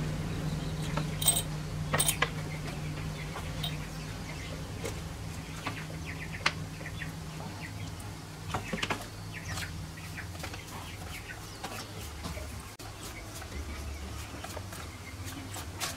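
Small metal starter-motor parts clinking and knocking against each other and a metal basin as they are handled and washed, in scattered light clicks, the sharpest about one and two seconds in.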